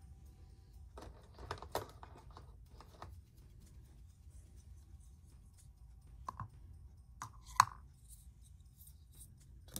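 Scattered light clicks and taps of plastic board-game pieces and cards being handled, with one sharper click about three quarters of the way through, over a faint low hum.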